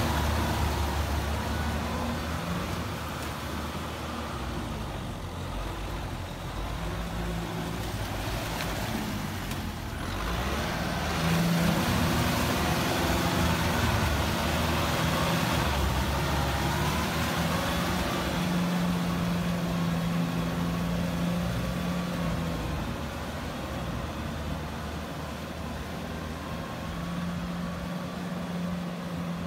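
Kubota M6040SU tractor's diesel engine working under load as it pulls a rotary tiller through rice-paddy mud, its pitch rising and falling. It is louder through the middle stretch.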